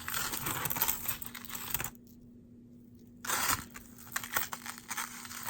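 Loose costume jewelry being handled and sorted by hand: rustling and crinkling with small metallic clinks, in two stretches with a short pause between them.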